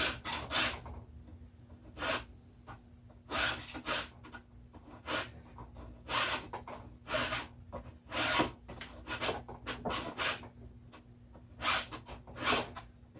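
Rasping strokes of a hand tool cutting a groove, one stroke roughly every second, unevenly spaced.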